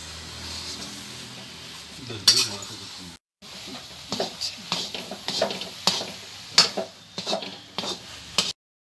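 A metal spatula scrapes and knocks against a metal pan as a thick, dry mixture of ground fresh coconut and condensed milk is stirred and roasted. After a brief dropout about three seconds in, the scrapes come quickly, about two or three a second, then cut off abruptly near the end.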